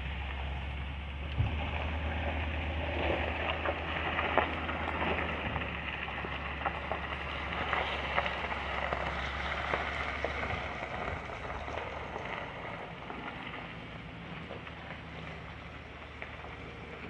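Truck driving slowly on a bumpy farm driveway: a low engine hum with rattles and knocks from the ride. The engine hum drops away about eleven seconds in.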